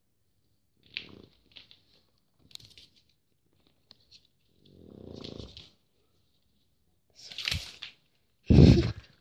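A sleeping pug snoring and snorting in irregular breaths. There is a longer pitched snore about five seconds in, and the loudest, deepest snort comes near the end.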